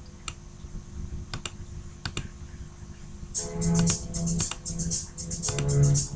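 A few sharp computer keyboard clicks over a faint hum in a gap between background songs. About three and a half seconds in, the next pop song begins with a quick rhythmic beat.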